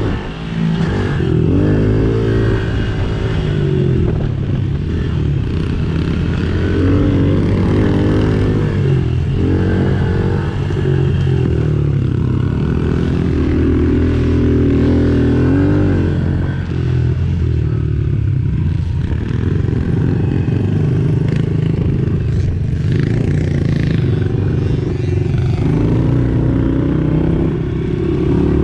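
A 110cc engine being ridden, its pitch rising and falling over and over as the throttle is opened and eased off.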